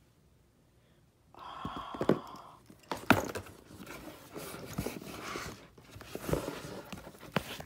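Leather handbag being handled and its flap lifted open: rustling and scraping with several sharp clicks, starting about a second and a half in.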